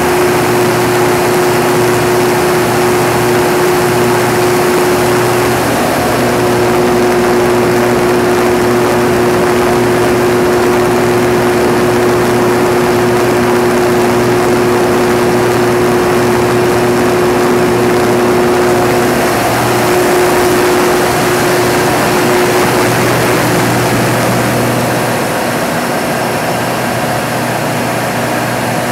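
Caterpillar 3516 V16 diesel engine of a 2000 kW generator set running at its rated 1800 rpm with no load: a loud, steady drone with a hum and a higher whine held over it, slightly quieter in the last few seconds.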